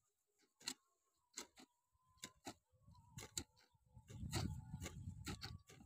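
Long-handled hoes striking and scraping soil between potato plants: sharp, uneven strikes, about one to three a second from two workers, with a low rumble through the middle to late part.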